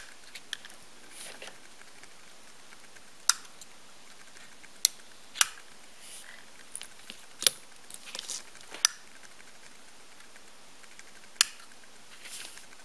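Handling noise from small objects: about seven sharp clicks and taps spread irregularly, with faint short rustles between them, as a plastic tube of solder wire and the amplifier circuit board are picked up, turned and set down.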